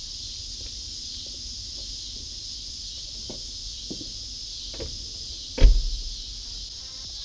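A few light knocks as someone climbs into a BMW E36 sedan, then the driver's door shuts with a single solid thump about five and a half seconds in. A steady high insect chirring goes on underneath.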